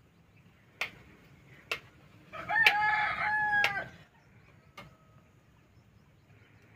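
A rooster crowing once, a single held call of about a second and a half, starting a little over two seconds in. A few short sharp taps come before and after it.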